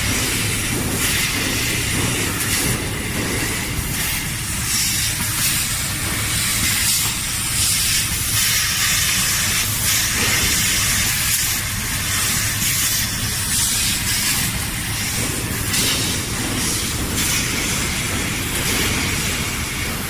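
Fiber laser cutting machine cutting small square steel pipe: a steady hiss of the cutting gas jet that swells and eases in short spells, over a continuous low machine rumble.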